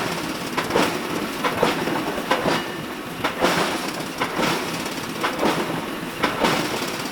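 Repeated blows of metal on metal, roughly one a second, over a steady mechanical clatter, typical of forging work on steel.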